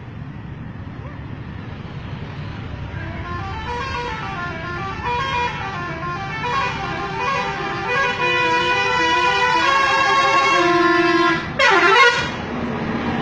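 A bus's multi-tone 'telolet' air horn plays a warbling melody of notes stepping up and down, growing louder over several seconds. Near the end it gives a loud swooping note that dips and rises again. A low vehicle rumble runs underneath.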